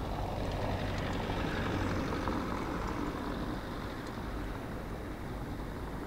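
Steady wind noise on the microphone over the low rumble of bicycle tyres rolling on brick paving, swelling between about half a second and three seconds in.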